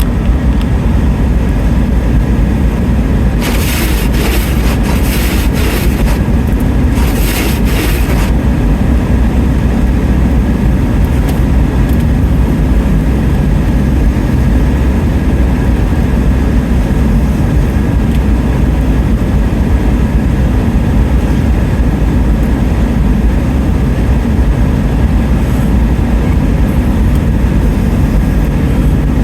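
Steady, loud low rumble of a car driving, heard from inside the cabin. Several brief bursts of hiss come a few seconds in.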